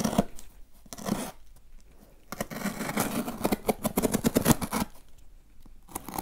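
Box cutter blade slitting a cardboard box open along its seam: a scratchy, crackling run of cutting lasting about two and a half seconds, starting a little after two seconds in. Before it, two short rustles of hands handling the cardboard.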